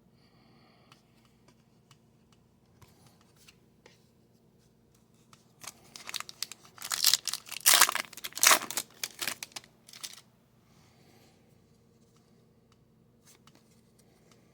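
Foil wrapper of a hockey card pack being torn open and crinkled: a burst of tearing and crackling lasting about four seconds in the middle, with faint card handling before and after.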